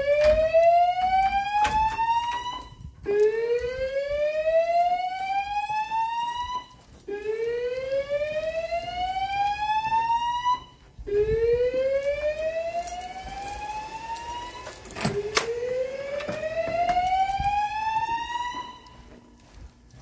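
Fire alarm speakers of a Notifier voice-evacuation system sounding the whoop evacuation tone. It is a series of five rising whoops, each climbing in pitch for about four seconds, then a short break before the next.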